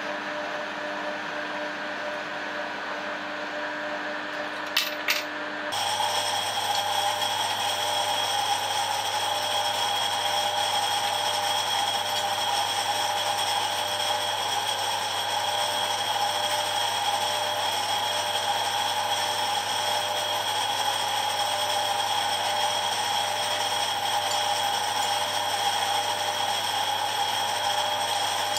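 Harrison lathe running, a steady machine hum. Two sharp clicks just before five seconds in, then the hum turns louder and steadier, with a high whine over it.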